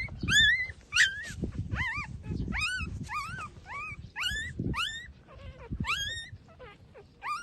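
Young puppies squealing and whimpering while they nurse: a quick run of short, high squeaks that rise and fall, about two a second, over low shuffling and suckling noise.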